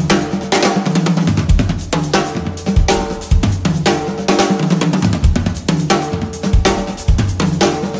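Drum kit played in a busy groove, with kick, snare, hi-hat and cymbal strikes, over pitched backing music.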